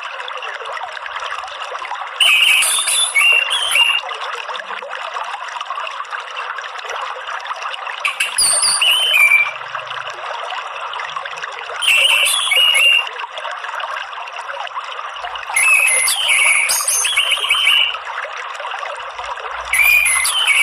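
Orange-headed thrush giving short, chittering twittered phrases, repeated about every four seconds, over a steady trickle of running water.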